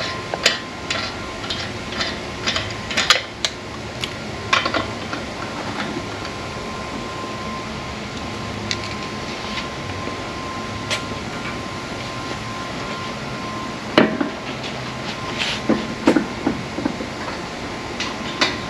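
Scattered metallic clinks and knocks of tools being handled, over a steady background hum.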